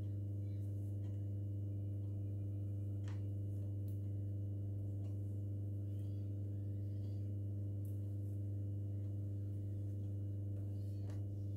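A steady low hum with several overtones, unchanging throughout, with a few faint ticks about three seconds in and again near the end.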